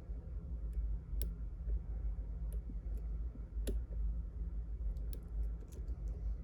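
Lock pick and tension wrench working the pins of a pin-tumbler challenge lock: scattered light metallic clicks, with several close together about five seconds in, over a steady low rumble.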